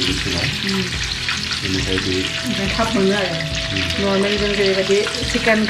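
Battered chicken pieces deep-frying in a pot of hot oil, sizzling steadily, while a slotted spoon stirs them in the pot. From about two seconds in, a pitched voice-like sound runs over the sizzling.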